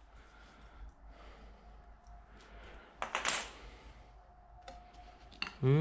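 Plastic spout on an epoxy primer container being worked and pried open by hand: faint clicks and light handling, with a short scraping rustle about three seconds in.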